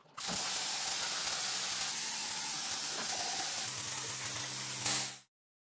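Gravity-feed paint spray gun hissing steadily as it sprays grey primer, with a low hum underneath. The hiss swells near the end, then cuts off suddenly.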